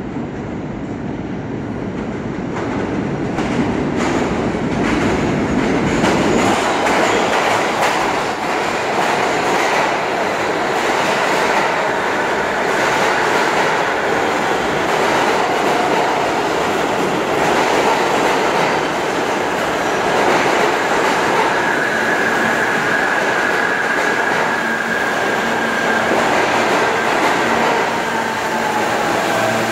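New York City subway train pulling into the station and rolling past along the platform: steel wheels running on rail, growing louder over the first several seconds and then holding steady. A high steady tone joins about twenty seconds in.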